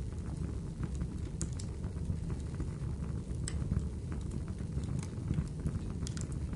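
Crackling fire: a steady low rush with scattered sharp pops and snaps, one every second or so.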